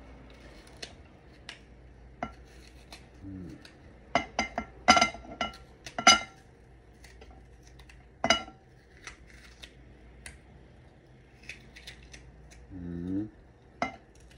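Kitchen knife slicing small pieces off a yellow bell pepper held in the hand over a glass bowl: crisp cutting clicks, with a cluster of sharp clinks that ring briefly off the glass bowl around the middle and another a couple of seconds later.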